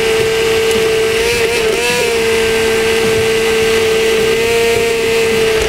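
Hand-held immersion blender running at high speed in a tall beaker, blending a thick walnut sponge-cake batter: a steady motor whine, its pitch wobbling briefly about two seconds in.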